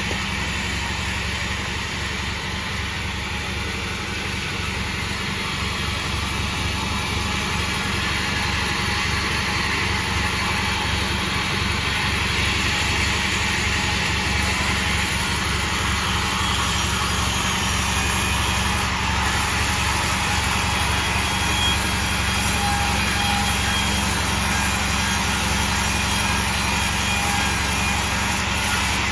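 Sawmill machine running steadily with an even engine-like drone.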